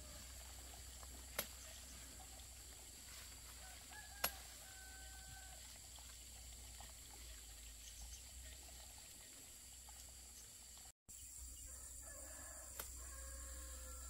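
Faint chickens calling in short pitched calls, over a low steady background hum, with two sharp clicks about a second and a half and four seconds in.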